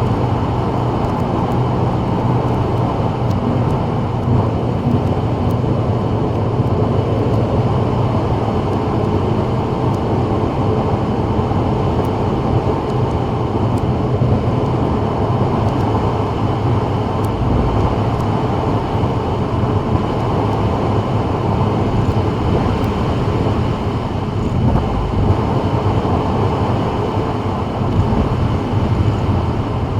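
Steady cabin noise of a 2024 Subaru WRX cruising at freeway speed: tyres hissing on wet pavement over a low, even engine and drivetrain hum, holding constant with no changes.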